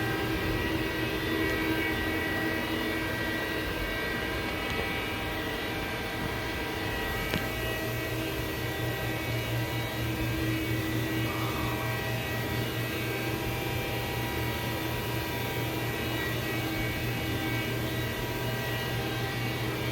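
Haas VF-2SS CNC vertical machining center running, a steady machine hum with several steady tones layered over it and a single small click about seven seconds in.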